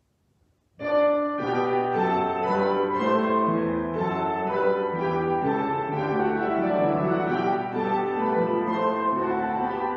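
Grand piano played four-hands: after a moment of near silence, a new piece begins suddenly about a second in and runs on with full chords and many moving notes.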